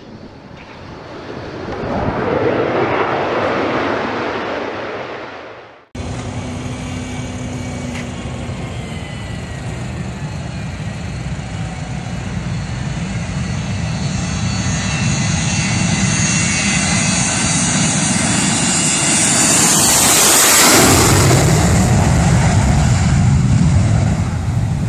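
A short swelling whoosh over an intro logo, cut off after about six seconds. Then a jet airliner taking off at full power, its engine roar with a thin high whine building steadily and loudest near the end as it passes.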